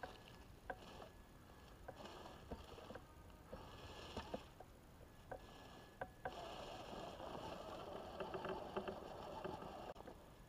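Faint rustling and crunching of dry leaves and twigs under the tires of scale RC crawler trucks creeping up a steep forest slope, with scattered small snaps. The rustle thickens about six seconds in.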